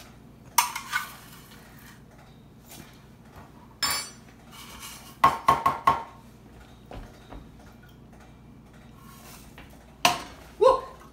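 A metal spoon scraping and clinking in a Soviet army aluminium mess kit, with the pot and its lid-pan knocked and set down in sharp metallic clinks that ring briefly. There is a quick run of clinks about five to six seconds in and two more near the end.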